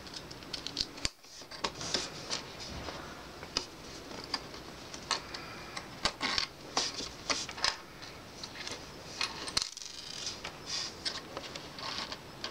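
Clear acrylic case plates and small screws being handled and fitted together: irregular light clicks, taps and scrapes of hard plastic and metal.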